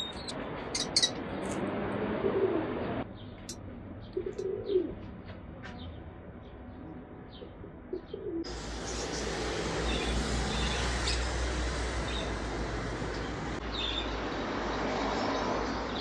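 Pigeons cooing, mixed with short, high-pitched bird chirps, over the first half. About eight seconds in, this gives way to a steady low rumble and hiss.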